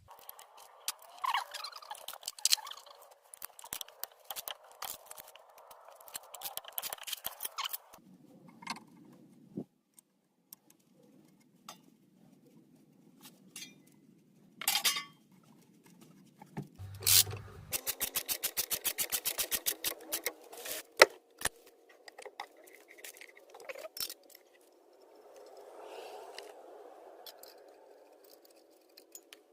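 Hand tools working on a car's front suspension: scattered metallic clicks, knocks and scrapes, with a run of rapid, evenly spaced clicking lasting about three seconds past the middle.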